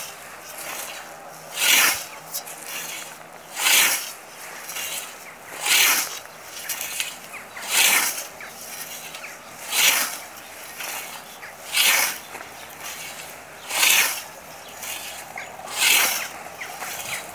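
Scythe blade swishing through tall grass in steady mowing strokes, one about every two seconds, eight in all.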